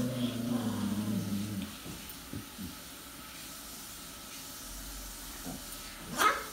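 A dog's low, steady growl for the first couple of seconds. Then a quieter stretch, and a brief loud thump about six seconds in as the husky leaps onto the couch cushion.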